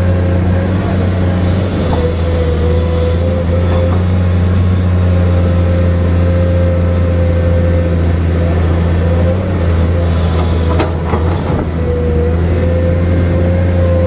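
Komatsu PC210 hydraulic excavator's diesel engine running steadily under load, with a steady higher whine over the engine hum that dips briefly about twelve seconds in. A few short knocks come about ten to eleven seconds in.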